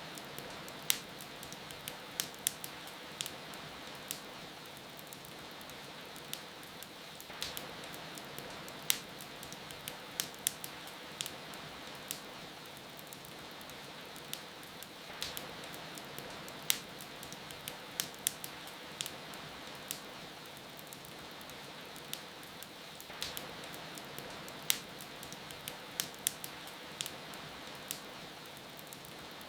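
Wood fire crackling, with frequent sharp irregular pops and snaps, over a steady hiss of falling rain.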